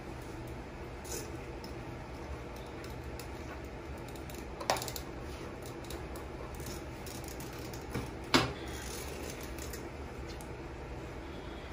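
A slicker brush rustling through a dog's long coat over a steady low room hum, with two short sharp sounds, one about five seconds in and a louder one near eight seconds.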